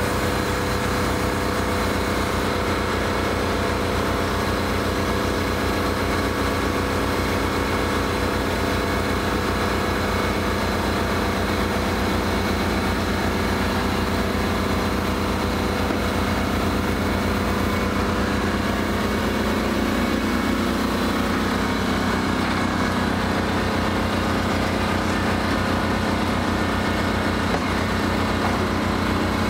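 Diesel engine-driven air compressor running steadily at a constant speed, a continuous drone with a fast, even low pulse.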